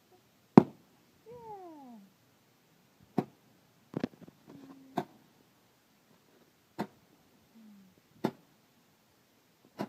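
A hand-held 10-ball Roman candle firing, a sharp pop every second or two, about seven shots, the first the loudest. A short falling cry comes about a second in, and two brief low pitched tones sound between later shots.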